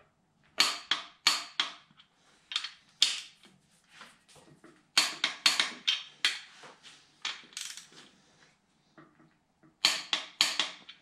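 Torque wrench ratcheting and clicking on main bearing cap bolts being brought up to their final torque: sharp metallic clicks in bunches, loudest about half a second in, around five seconds in and near the end.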